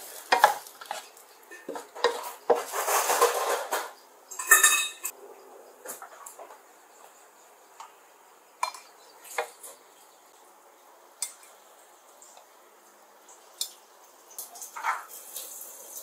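Dishes and cutlery clattering: irregular clinks and scrapes, busiest in the first five seconds with a longer scrape about three seconds in, then scattered clicks.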